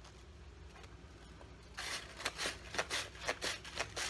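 Half an onion being slid over a handheld mandoline slicer's blade, slicing it thin. Quiet for the first second or so, then from about two seconds in a quick run of slicing strokes, about four a second.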